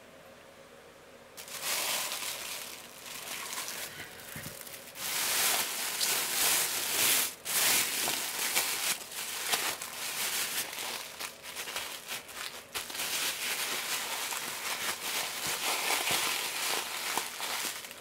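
Thin plastic bag crinkling and rustling as hands wrap and press a ball of tart dough inside it. It starts about a second and a half in and goes on as a dense run of crackles and rustles.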